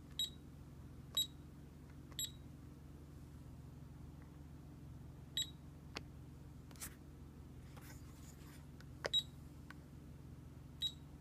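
Keysight U1231A digital multimeter beeping as its buttons are pressed: six short high beeps, the first three about a second apart, the rest spread out. A few soft clicks sit between them.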